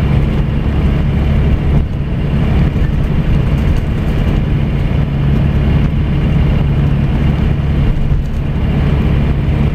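Scania diesel coach engine and road noise heard from a seat near the rear of the cabin while the coach cruises along the highway: a steady low drone with no rise or fall in pitch.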